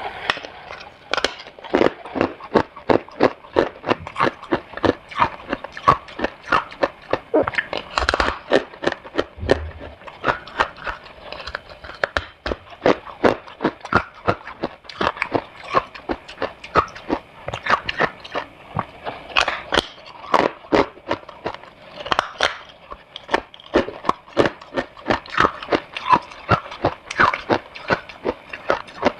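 A person biting and chewing crunchy freezer frost (humidifier frost), with fast, steady crunching at a few crunches a second.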